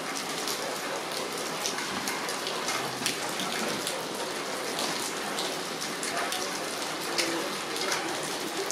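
Steady rainfall, an even hiss dotted with frequent sharp ticks of individual drops striking surfaces.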